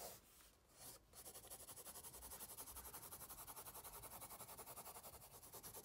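Faint rapid scribbling of a pencil on paper, starting about a second in: quick, even back-and-forth shading strokes at about ten a second, heavy marks built up to darken the drawing.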